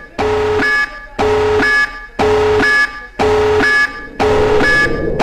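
Loud electronic alarm-like tone pulsing about once a second, each pulse a held lower tone ending in a short higher one.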